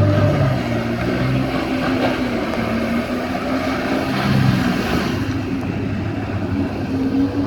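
Yamaha jet ski's engine running under way, its pitch rising and falling as the throttle changes, over a steady rush of water and spray.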